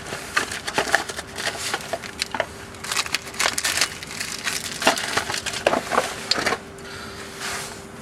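Brake parts and tools being handled during front brake pad fitting: a dense, irregular run of clicks, taps and scrapes that thins out near the end, over a faint steady hum.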